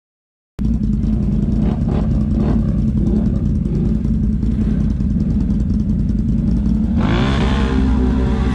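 ATV engine running as the quad rides along, a steady low drone that cuts in abruptly about half a second in. About seven seconds in the engine revs up, rising in pitch.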